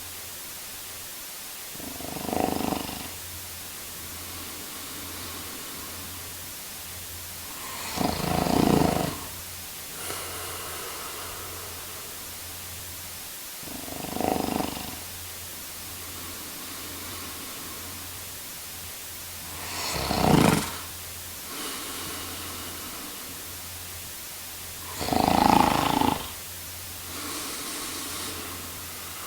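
A man snoring: five loud snores at an even pace, about six seconds apart, with softer breaths between them and a faint steady low hum underneath.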